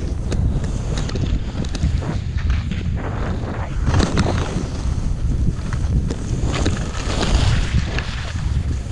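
Wind buffeting the microphone of a pole-held camera while skiing downhill, a steady low rumble. Over it come the hiss and scrape of skis on packed snow, swelling about four seconds in and again near the end.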